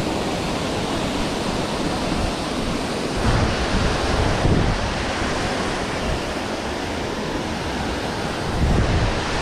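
Steady rush of a waterfall's falling water, with wind buffeting the microphone in low rumbles about three seconds in and again near the end.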